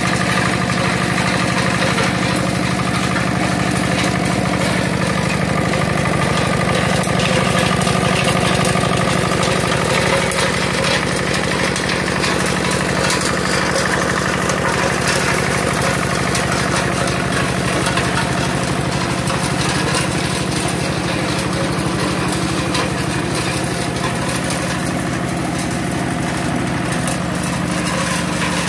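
Small engine driving a chipper that crushes biochar into small pieces: a steady engine drone at constant speed, with the crackle and rattle of charcoal lumps being broken up in the machine.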